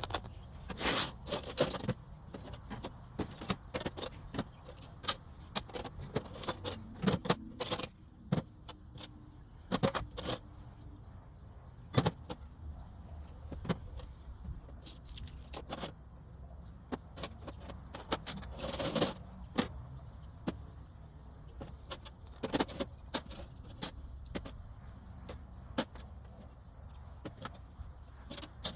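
Loose metal hand tools clinking and clattering against each other as they are pulled out of a box and set down, in many irregular sharp clanks.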